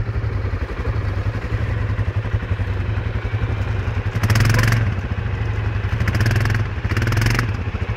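ATV engine running steadily, revved in three short bursts about four seconds in and twice near the end, as the quad is pulled out of deep snow on its winch cable.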